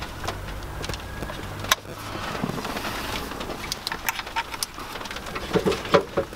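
Handling noise from fitting a car stereo's wiring: small plastic clicks, taps and rustling as a wiring adapter plug and cable are worked against the back of an aftermarket head unit.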